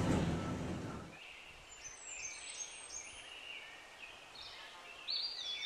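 Songbirds chirping in a quiet outdoor background: many short, high chirps, with a louder call near the end. A low rumble fades out in the first second.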